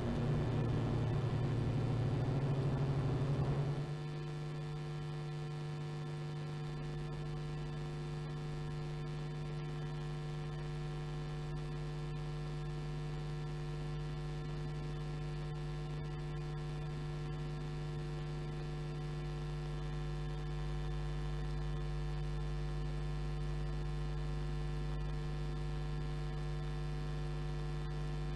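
Race car engines on the circuit for about the first four seconds, cut off suddenly. Then a steady electrical mains hum with several fixed tones and no other sound.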